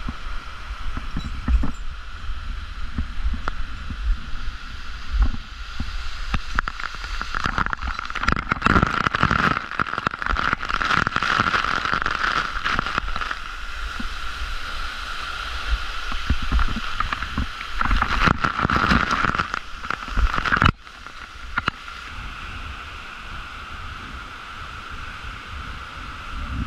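Waterfall rushing close by during an abseil, with short knocks and low rumbling on the action-camera microphone. About two-thirds of the way through it drops abruptly to a quieter, steadier waterfall rush.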